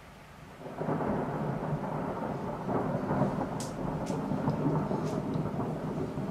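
Thunder rolling in suddenly about a second in, a long low rumble that carries on to the end, over falling rain. A few sharp ticks come in the middle.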